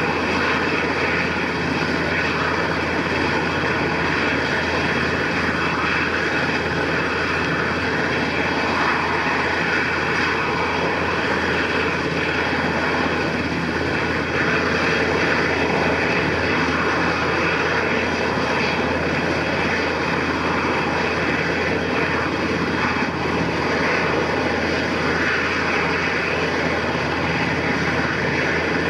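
Sikorsky S-92 helicopter running on the ground with its rotors turning before lift-off: a steady whine from its twin turboshaft engines over the rotor noise, holding level with no change in pitch.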